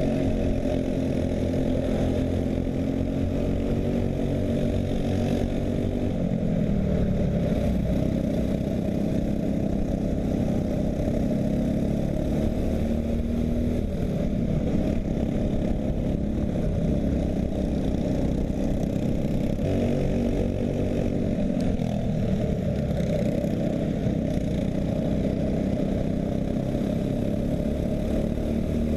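Racing kart engine at speed, its note dropping and climbing back again several times as the kart slows for corners and accelerates out of them.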